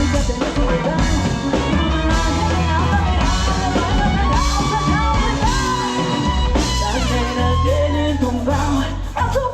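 Live Latin pop band playing an upbeat song, with drum kit and bass under a melody line.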